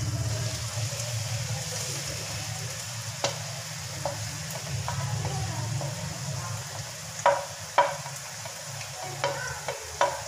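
Chicken frying in hot oil in a wok, a steady sizzle, as sliced green peppers, carrots and onions are pushed off a plate into it. A spoon scraping the plate and knocking against the plate or wok gives several sharp clicks, the loudest two a little past seven seconds in.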